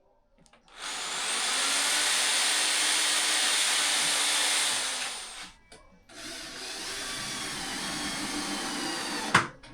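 Table saw's electric motor running with a high whine: it winds up, runs about four seconds and spins down, then runs again for about three seconds and stops with a sharp click.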